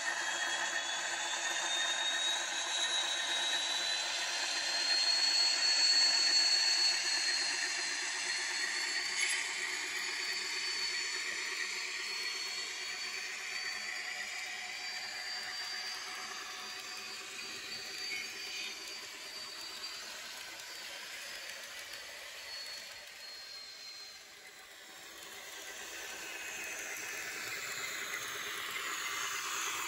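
N-scale model diesel train running past: a Fleischmann M62 locomotive with a DCC sound decoder, with its coaches rolling on the track. A high motor whine rises in pitch over the first few seconds and then holds. The running noise fades as the train draws away, is at its quietest about three-quarters of the way through, then grows again as a train approaches.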